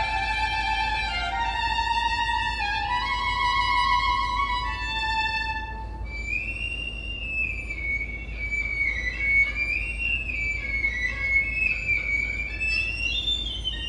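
Solo violin played unaccompanied. It holds notes in the middle register for the first six seconds or so, then climbs high into a faster, winding melody with small slides between notes.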